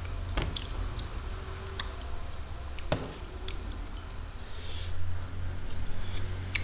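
Close-up mouth sounds of a person chewing food: scattered wet clicks and smacks, one sharper click about three seconds in. A low steady hum sits underneath.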